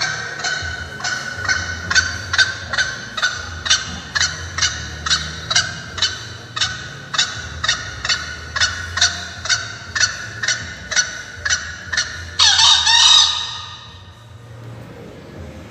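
Recorded bird call played back through a bird-caller MP3 speaker: short pitched call notes repeated evenly, about two or three a second, then a longer, louder call with a wavering, falling pitch near the end, after which it stops.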